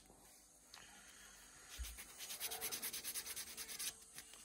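Hand sanding of a small plastic model-kit part with a sheet of sandpaper: a faint run of quick back-and-forth rubbing strokes that starts about two seconds in and stops near the end.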